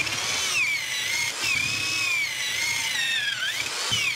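Corded electric drill with a 1-inch bit boring up into an insulated roof panel, its motor whine wavering and dipping in pitch as the bit bites and the load changes.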